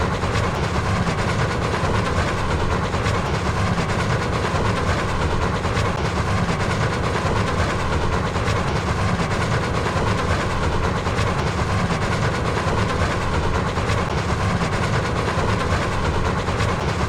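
Train running at steady speed: a continuous low rumble of wheels on rails with a faint clickety-clack.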